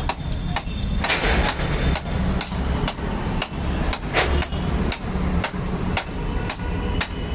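Hammer striking metal in a steady rhythm, about two blows a second, over a low steady rumble of engines.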